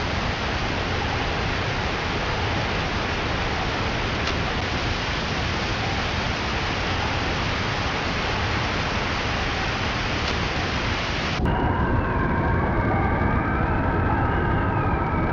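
A steady, even rushing noise, rain-like, which cuts off suddenly about eleven seconds in and gives way to several wavering, gliding tones.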